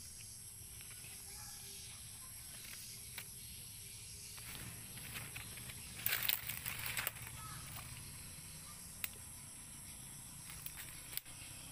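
Quiet outdoor background with a steady high hiss, and a short cluster of rustling and handling noises about six seconds in as a freshly shot Nile tilapia and its air-rifle dart are handled; a single click near the end.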